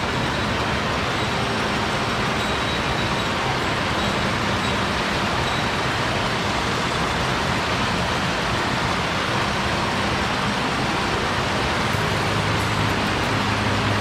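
Steady rush of a mountain stream's flowing water, an even, unbroken noise.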